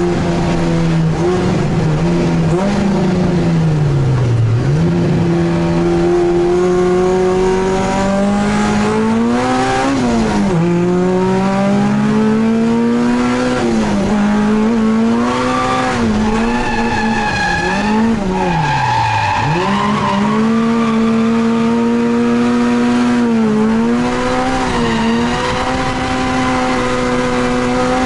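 Toyota Corolla TE71's 4A-GE twin-cam four-cylinder engine heard from inside the cabin, held at high revs while drifting, the revs dropping sharply and climbing back several times. Tyres squeal at times.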